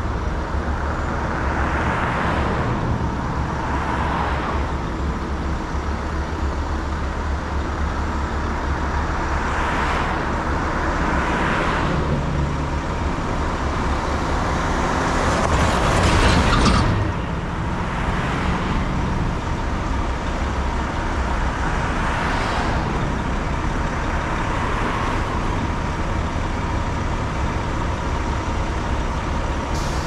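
Road traffic noise: a steady low hum with vehicles passing one after another, each swelling and fading. The loudest pass, with the deepest sound, comes about halfway through.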